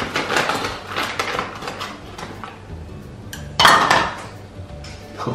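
Frozen strawberries rattling and clattering against a plastic measuring scoop as they are dug out of a plastic bag, with bag rustle; a single louder clatter comes about three and a half seconds in.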